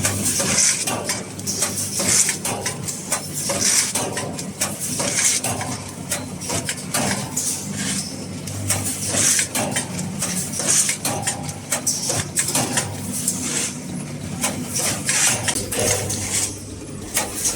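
Bag-in-bag packing machine running: a steady motor hum under continuous mechanical clicking and clattering, with a hissing burst about every one and a half seconds as it cycles.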